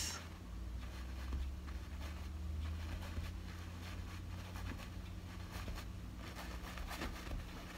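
Worn filbert paintbrush with acrylic paint dabbing and scrubbing lightly on canvas: faint, irregular scratchy brush strokes over a low steady hum.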